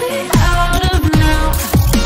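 Electronic dance music with a heavy beat and repeated falling bass sweeps; the bass drops out for a moment right at the start.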